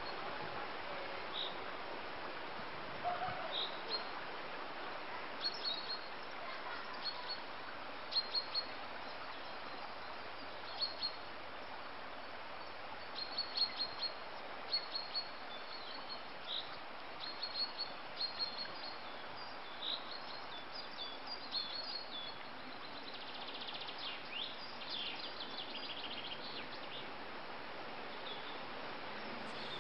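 Songbirds chirping and singing in short, high phrases over a steady hiss, the calls coming every second or two; the song grows denser about three-quarters of the way through.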